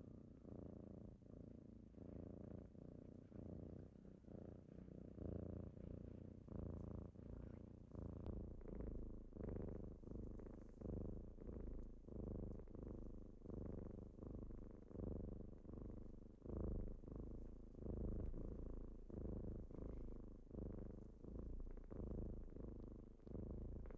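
Kitten purring: a low rumble that swells and eases in regular pulses with each breath, growing louder about a third of the way in.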